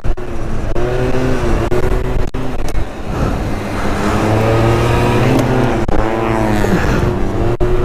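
MBK Booster scooter's small two-stroke engine ridden at or near full throttle, its pitch rising and dipping several times as the throttle is worked, with wind rushing over the microphone.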